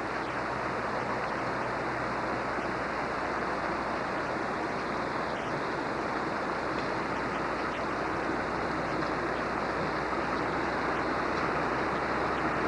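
A swollen, flooding river rushing steadily, an even wash of water noise with no breaks.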